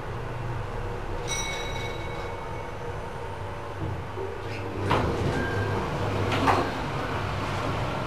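Inside a 1990 Mitsubishi elevator car: a steady ride hum, and a single held chime from the floor bell about a second in as the car arrives at the floor. Around five seconds in the sliding doors open with clunks and rattling.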